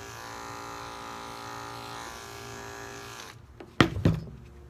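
Electric pet grooming clippers buzzing steadily while shaving a cat's fur, switching off a little over three seconds in. Two sharp knocks follow, the loudest sounds, as the clippers are set down on the table.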